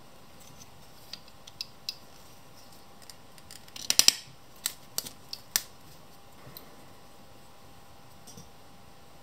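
Knipex revolving punch plier at work on leather: a few light metal clicks, then a loud cluster of snaps about four seconds in as the punch goes through a strip of leather, followed by four sharp clicks over the next second and a half.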